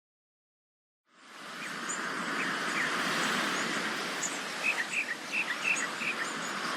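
After about a second of silence, steady sea surf fades in and holds as an even wash of noise, with small birds chirping in short, quick calls over it.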